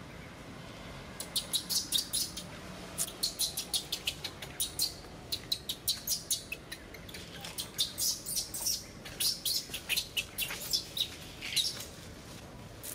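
Newborn macaque giving distress cries: a rapid series of short, shrill squeals, several a second, as its mother pulls it along. The squealing starts about a second in and stops shortly before the end.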